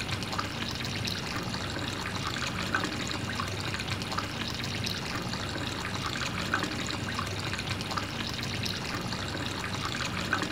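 A thin stream of water pouring steadily from a miniature hand pump's spout into a plastic half-pipe channel and trickling into wet sand.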